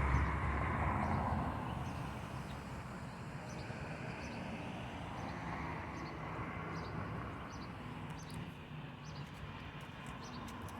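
Road traffic hum that swells and fades as vehicles pass, with small birds chirping in short, scattered notes.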